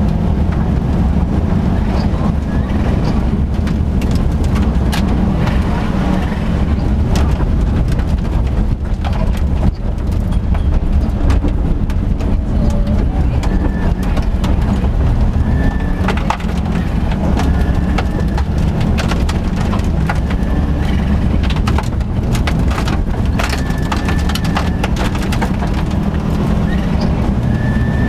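Subaru Impreza GC8 rally car's flat-four engine running hard, heard inside the cabin, with gravel and stones clattering against the underside.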